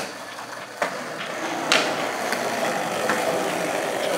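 Skateboard wheels rolling steadily on a smooth indoor floor, with two sharp clicks from the board in the first two seconds.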